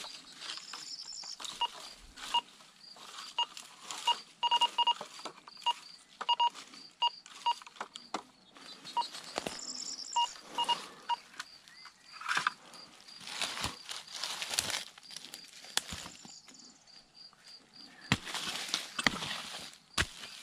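Metal detector giving runs of short, repeated beeps as its coil passes over a buried metal target. About halfway through the beeps stop and a small hand pick strikes and scrapes into stony soil over and over.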